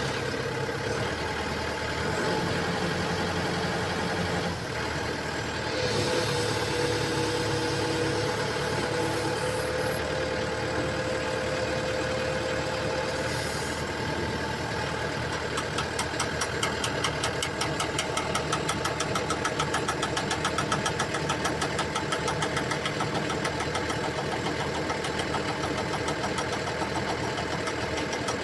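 Komatsu hydraulic excavator running while its upper structure swings, giving an abnormal sound from the swivel joint. A steady machine drone, with a rapid, even ticking that sets in about halfway through and keeps on.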